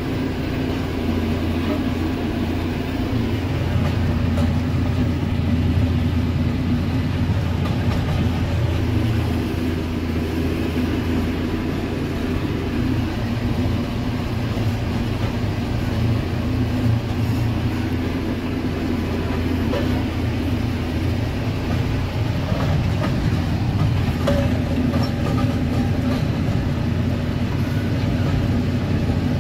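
John Deere tractor engine running steadily under load while pulling a tine cultivator, heard from inside the cab as a steady low drone.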